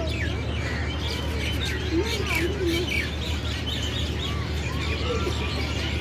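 A mixed chorus of birds calling: many quick chirps and whistles overlapping, with a few lower wavering calls, over a steady low hum.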